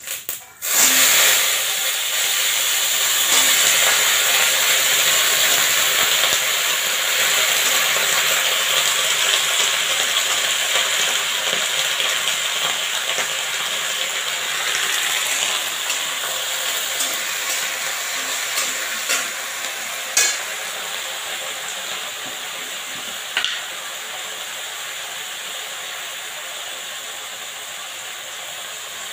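Chopped vegetables dropped into hot oil in a metal kadai, sizzling loudly at once, the sizzle slowly dying down over the following seconds. A few sharp taps of the spatula against the pan as they are stirred.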